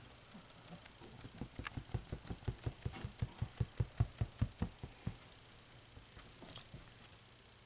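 A sleeping pet snoring in a fast run of short snuffling breaths, about five a second. They build to their loudest about four seconds in and die away a second later.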